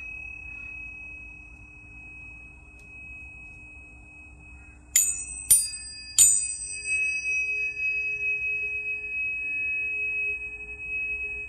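Planetary tuning forks ringing. A high pure tone from an earlier strike fades over the first few seconds. About five seconds in, three strikes in quick succession set several pure tones ringing together, their loudness wavering as they sound on.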